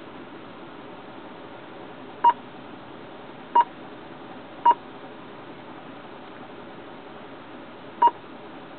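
Keypad beeps from a GE Orion (M/A-COM) hand-held radio controller as its buttons are pressed: four short single-pitch beeps, three within about two and a half seconds and a fourth a few seconds later, over a steady low hiss.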